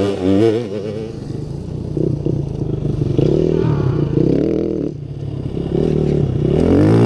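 Off-road dirt bike engines revving as the bikes ride past. The pitch rises and falls with the throttle, with a lull about five seconds in and a bike accelerating hard near the end.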